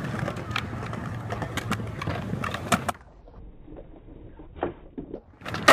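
Skateboard wheels rolling on concrete, a steady rumble with small clicks. About three seconds in it drops away, a few light knocks follow, and a loud smack of the board landing comes near the end.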